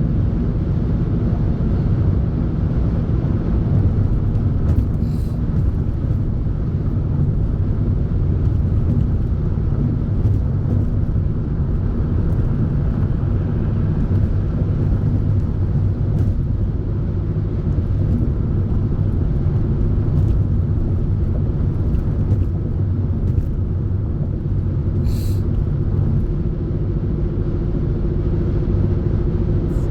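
Steady low rumble of a running car, with a few steady low tones under it and no change through the stretch.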